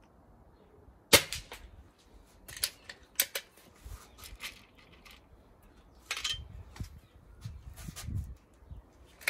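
Airgun shooting: one sharp crack about a second in, the loudest, then several shorter cracks and clicks spread over the following seconds, with the last near the end.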